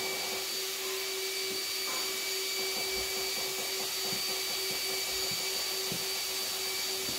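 Steady mechanical hum and hiss with a constant whine, like a fan or blower motor running, with a few faint soft knocks.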